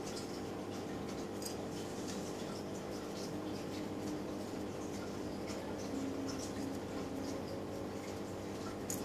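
Light clicks and scratches of small fishing-tackle parts being handled, scattered irregularly over a steady background hum.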